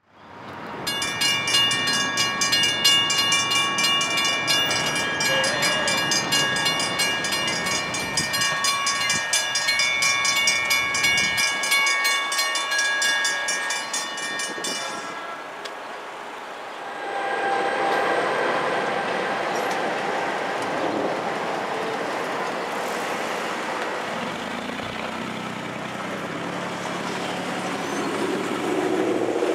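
Railroad grade-crossing bell ringing in rapid strokes as the gates come down; it stops about halfway through. A train then rolls over the crossing with a steady rumble and rail noise.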